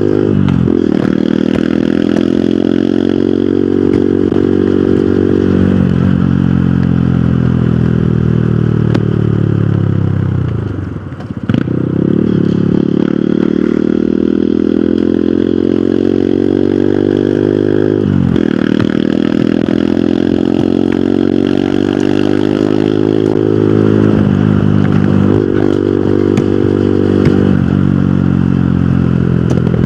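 Hero Hunk single-cylinder motorcycle engine running under way. The revs repeatedly climb and then drop sharply every few seconds. About 11 seconds in, the throttle closes briefly and the revs sink low before picking up again.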